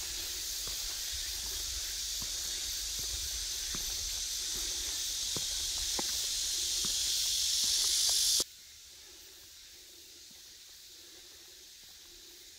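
Dense summer cicada chorus, a loud, even high-pitched hiss that swells slightly, with steady footsteps on stone paving ticking underneath. It cuts off suddenly about eight seconds in, leaving only a faint hiss.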